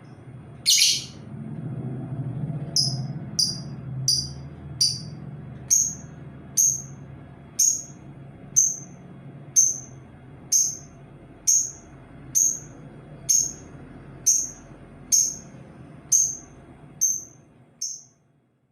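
Labet bird calling with a short, sharp high note repeated about once a second, a lure call meant to attract other labet birds. A faint low hum runs underneath.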